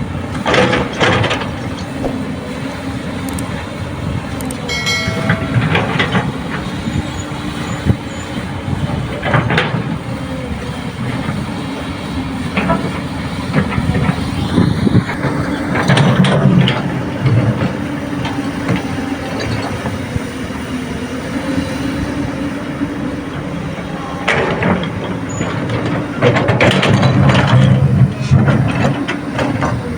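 Komatsu PC200 excavator's diesel engine running steadily under load while loading rocky soil, with repeated clanks and rattles of rock and metal every few seconds. A brief high squeal comes about five seconds in.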